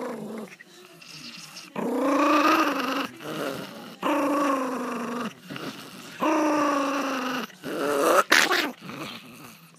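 A Pomeranian growling in long drawn-out snarls, three of about a second each, then shorter rising ones near the end. He is guarding his treat after it was taken from him.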